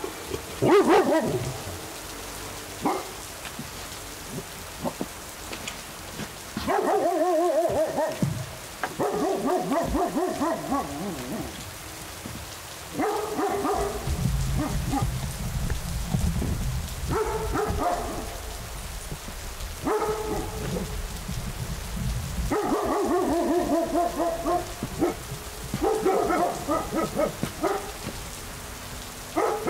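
A dog whining and yowling in about nine drawn-out, wavering calls of a second or two each, over steady rain. A low rumble runs through the middle stretch.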